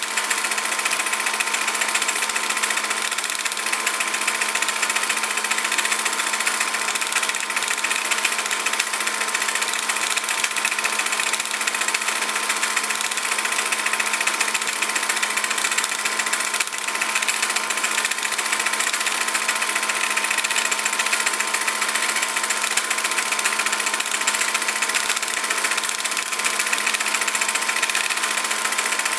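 A small machine running steadily, giving an even whirring hiss with a constant hum that does not change.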